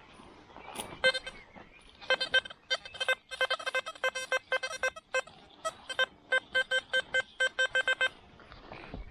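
Metal detector giving many short beeps at one pitch, in quick irregular runs for about seven seconds: the signal of buried metal under the coil.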